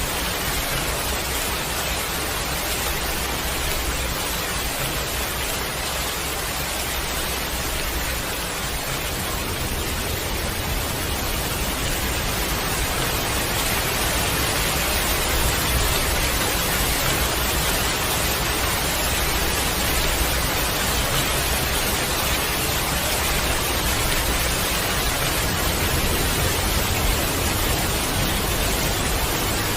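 Heavy rain falling steadily, a dense, even hiss without separate drops standing out, swelling slightly about halfway through.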